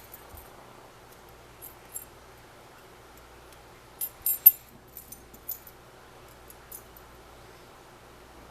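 Brass round-body padlocks being handled, giving a few light clicks and clinks, most of them in a short cluster about four seconds in.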